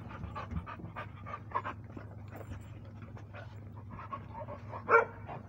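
A litter of young puppies moving about in dirt and dry leaves, with many small scuffs and faint squeaks. About five seconds in, one short, loud yelp.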